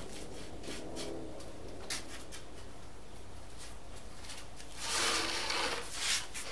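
A plywood wall panel sliding and scraping across another plywood sheet beneath it as the two are shifted into line. It is loudest for about a second near the end, after a few light wooden knocks.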